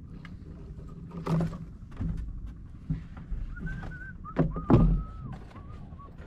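Knocks and thuds against a wooden boat's hull and deck, several spaced apart, the loudest pair a little before the end, as a freshly caught fish is handled on board. Thin whistling tones come and go over the second half.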